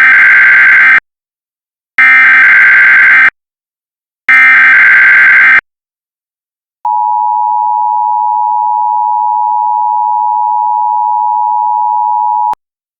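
Emergency Alert System SAME header: three harsh, buzzing bursts of data tones, each about a second and a quarter long with short gaps between them. These are followed by the two-tone EAS attention signal, a steady dual-pitched tone held for about six seconds that cuts off abruptly near the end.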